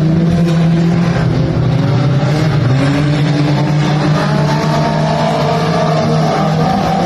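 Mini stock race car engines running hard under racing, their pitch rising and falling as the cars accelerate and lift.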